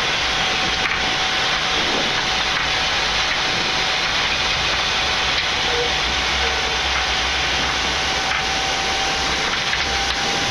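Steady cockpit noise of a Boeing 787 rolling slowly after landing: hiss and rumble from the idling Rolls-Royce engines, airflow and the wheels. A faint thin whine runs through it and creeps slightly upward in pitch.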